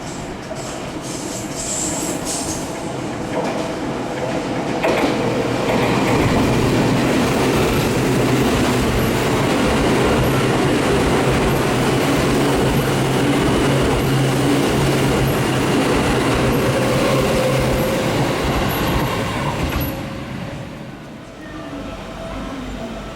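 Seibu Shinjuku Line electric train passing through the station without stopping. The sound builds over the first few seconds, runs as a loud steady rush of wheels on rail with a low motor hum for about fifteen seconds, then fades quickly near the end.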